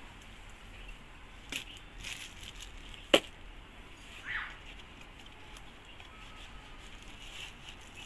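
Cardboard phone carton and its paper and plastic packing being handled, with soft rustles and scrapes and one sharp click or tap about three seconds in.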